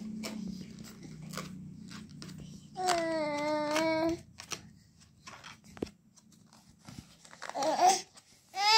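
A baby vocalizing: a held babbling "aah" about three seconds in, and a louder, higher-pitched wail starting near the end. In between, the stiff paper card the baby is handling crinkles and taps.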